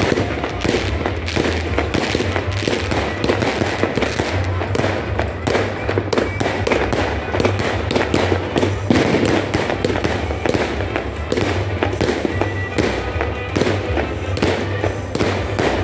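Fireworks going off in a dense, unbroken barrage: many sharp bangs and crackles a second from rockets launching and bursting overhead.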